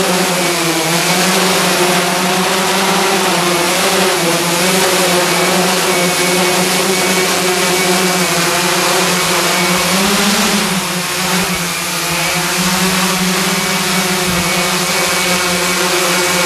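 Large hexacopter's six brushless motors and propellers hovering: a loud, steady whirring drone whose pitch wavers slightly as the motors correct. About ten seconds in the pitch rises briefly, then the sound eases a little before settling again.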